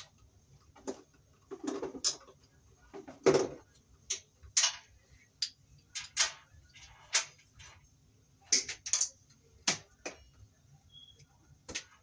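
Irregular clicks, taps and rustles of hands and a pair of wire strippers handling electrical wires at a junction box, with one louder knock about three seconds in.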